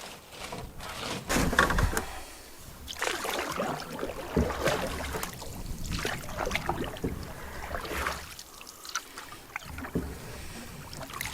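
Canoe paddle strokes in lake water: a splash and swirl with each stroke, coming every second or two, with dripping between strokes.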